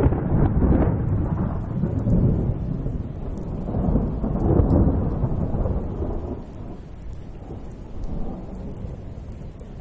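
A low rumble of thunder over a steady hiss of rain, swelling about four to five seconds in and then fading.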